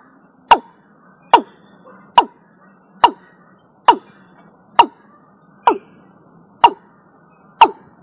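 Watercock (Gallicrex cinerea) calling: a steady series of short, sharp notes, each dropping quickly in pitch, nine of them a little under a second apart.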